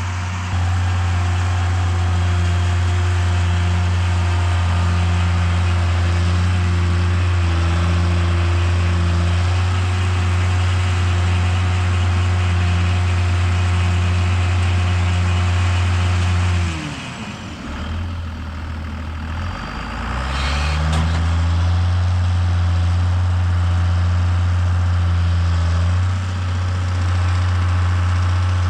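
John Deere 7510 tractor's diesel engine running steadily under load while pulling a round baler. About 17 s in the engine speed sags and the level drops, and a few seconds later the revs climb back up and it runs steady again.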